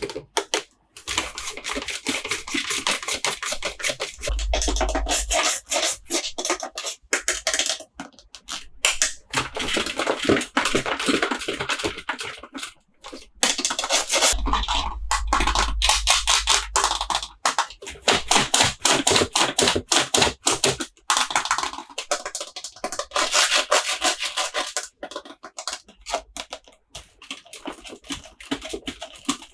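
Hands unboxing and handling toy dinosaurs: rapid clicking, tapping, scratching and rubbing of the toys and their packaging.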